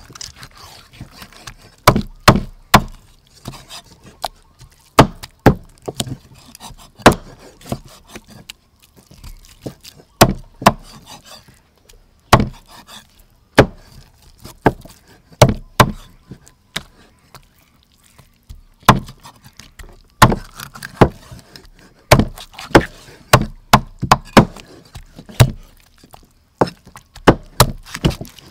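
Cleaver chopping raw chicken breast into chunks on a thick wooden chopping board: a string of sharp knocks as the blade strikes through the meat into the wood, irregular and in quick clusters with short pauses between.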